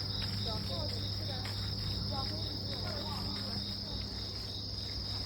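Insects, crickets, chirring steadily in a high continuous drone with a regular pulse about three times a second.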